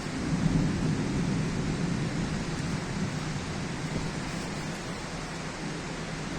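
Thunder rumbling low and long, swelling in the first second and then slowly fading, over a steady hiss of heavy rain.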